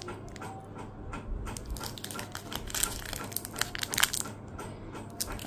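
Thin clear plastic wrapping crinkling in the hands as a ring is unwrapped, in irregular crackles with a few sharper ones about three and four seconds in.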